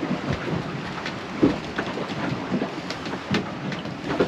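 Sailing catamaran underway heard from inside the cabin: a steady rush of water along the hull with irregular knocks and thumps, a few louder ones about a second and a half and three seconds in.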